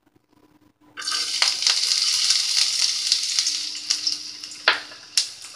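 Chopped onion dropped into hot oil in a pan, sizzling suddenly from about a second in and slowly dying down. Two sharp knocks come near the end.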